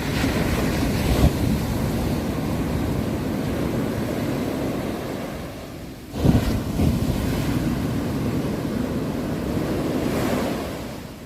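Sea waves breaking on a shore: two waves in turn, each arriving with a sudden rush and then washing out, the second about six seconds in.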